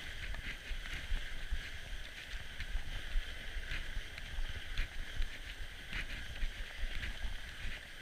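Norco Bigfoot fat bike riding over packed snow singletrack: a steady, uneven low rumble of the wide tyres and bike over the bumpy trail, with a hiss of snow and a few short sharp clatters from the bike as it hits bumps.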